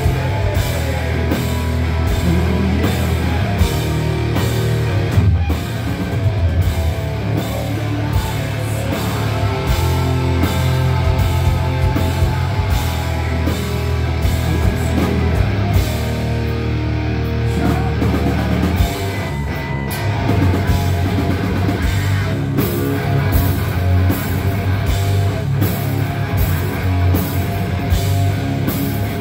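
Live rock band playing loud: distorted electric guitars and bass over a drum kit with a steady beat.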